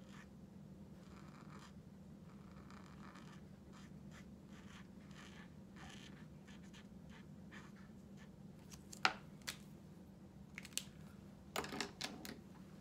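Tombow brush pen tip stroking over paper, a faint soft scratching as an orange swatch is coloured in. From about nine seconds in, a few sharp plastic clicks as pens are capped and a marker is uncapped.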